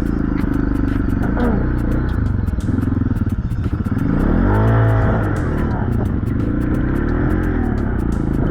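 Dirt bike engine on a Timbersled snow bike revving up and down while riding, with the loudest rise and fall about halfway through.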